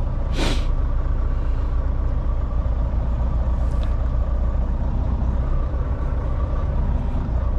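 Semi-truck engine running steadily, with a short burst of hiss about half a second in.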